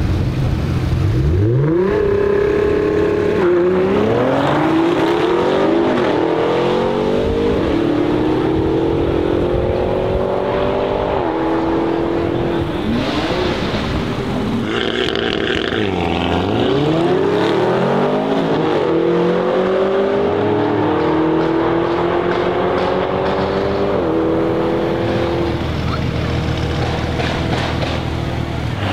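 Audi RS Q8 twin-turbo V8 and Nissan GT-R Nismo twin-turbo V6 launching side by side in a drag race and accelerating hard through the gears, the engine pitch climbing and dropping back at each upshift. About halfway through the pitch falls low and a new climb through the gears begins.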